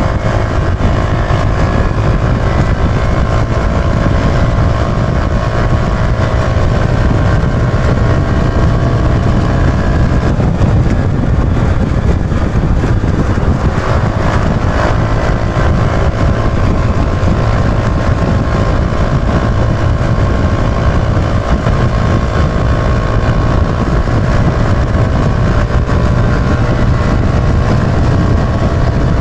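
Yamaha YB125Z DX's single-cylinder 125 cc four-stroke engine running at a fairly steady speed while the bike is ridden, with heavy wind rumble on the microphone.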